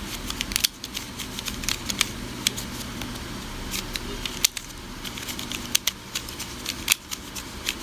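YJ Yulong Pyraminx being turned by hand: quick, irregular plastic clicks and clacks as its faces and tips rotate.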